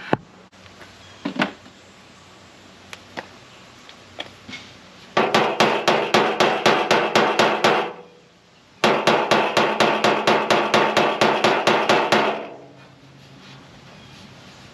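Body hammer striking the inside of a 1991 Chevrolet Camaro's sheet-metal fender to knock out a dent on the body line. A few single taps come first, then two runs of rapid ringing blows, about five or six a second, separated by a short pause.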